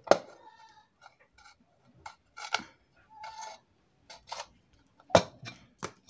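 Sharp metallic clicks and knocks with brief scraping as a screwdriver prises apart the two halves of an Usha ceiling fan's motor housing. The loudest click comes right at the start, with a few more spread through.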